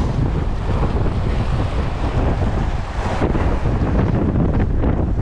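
Strong wind buffeting the microphone, with the rush of waves on the sea.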